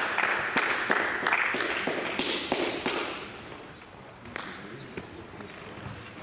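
Table tennis balls tapping off tables and bats in quick succession, about three hits a second, thinning to a few scattered taps after about three seconds.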